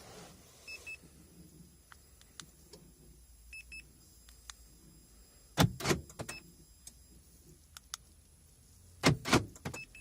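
Car central door locks clunking, driven by an aftermarket alarm: a cluster of sharp mechanical knocks about five and a half seconds in and another about nine seconds in. Short paired electronic beeps come several times in between.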